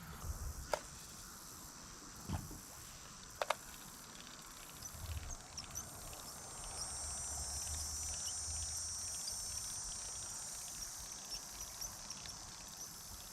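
Insects buzzing in a high, steady drone that swells louder in the middle and slowly fades, with a couple of sharp clicks in the first few seconds.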